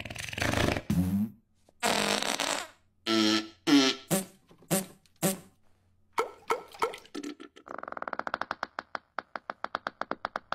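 Comic film fart sound effects: a string of short blasts and squelches, then a long, rapid sputtering fart of about ten pulses a second over the last few seconds.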